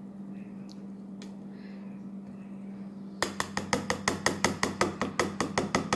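Rapid, regular clinking of a utensil against a dish, about five strikes a second, starting about three seconds in, over a steady low hum.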